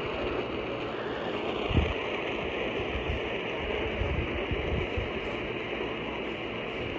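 Steady rushing hiss with irregular low thuds underneath, the sharpest about two seconds in.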